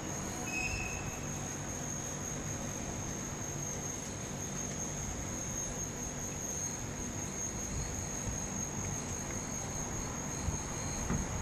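Small 6 W, 8-inch solar-powered DC fan running: a steady high-pitched whine over a low, even rumble.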